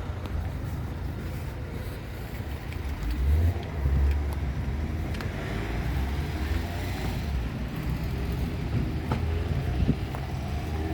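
Opicina tram running: a steady low rumble that swells about three to four seconds in, with a few sharp clicks later on.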